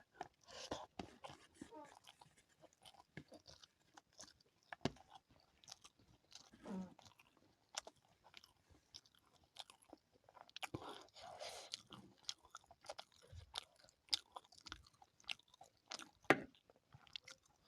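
Close-miked chewing, with irregular wet mouth clicks and smacks and a few sharper crunches.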